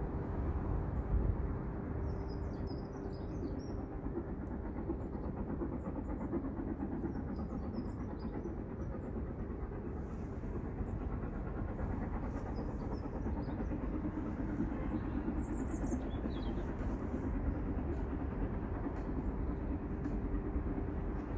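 Distant steam-hauled train approaching, heard as a steady low rumble, with small birds chirping now and then.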